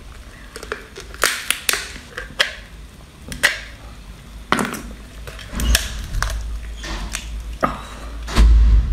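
Close-miked eating sounds of teeth and hands cracking and crunching the shell of a large cooked crustacean claw: irregular sharp cracks and crunches, with a heavier low thud near the end.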